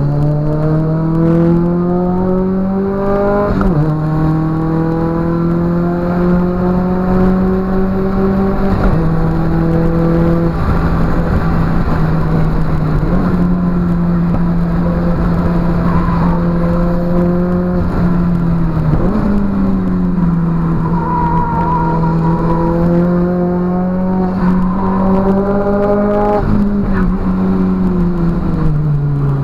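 In-cabin sound of a Nissan 200SX S13's turbocharged CA18DET four-cylinder engine with a 3-inch exhaust, driven hard: its pitch climbs and drops sharply at upshifts about 3.5 and 9 seconds in, holds fairly steady at speed, climbs again in the second half, then falls away near the end as the car slows.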